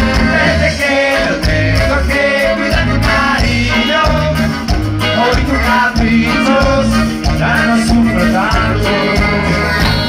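Spanish-language Latin song: singing over a band with a steady, pulsing bass beat.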